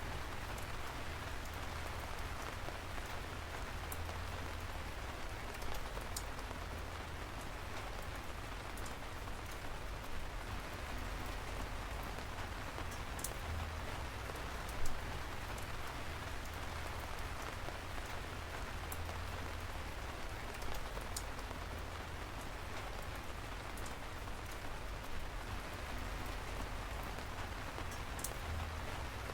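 Steady rain falling, an even hiss with a few louder single drops ticking now and then.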